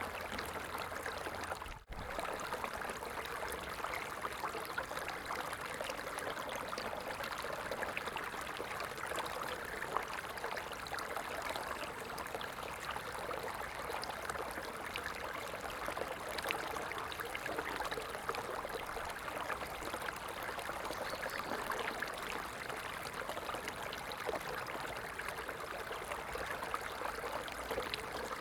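Running water flowing steadily with a dense, even rushing and splashing. It cuts out for an instant about two seconds in.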